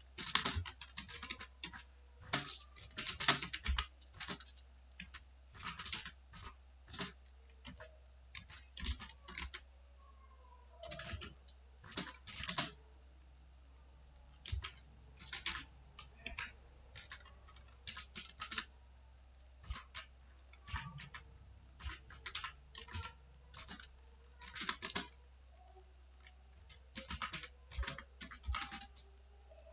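Computer keyboard being typed on in irregular runs of keystrokes, with short pauses between the runs.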